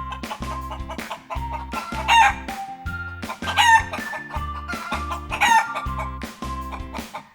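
A chicken call sound effect three times, short loud squawks over background music with a steady beat.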